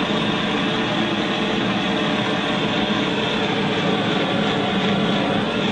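Handheld gas blowtorch burning with a steady, unbroken rushing noise as its flame heats a long steel rod.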